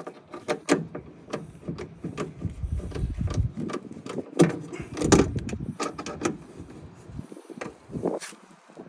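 Irregular metallic clicks, clanks and knocks of hand tools and parts being worked inside a car door while a window regulator is fitted, with a few duller thumps about three and five seconds in.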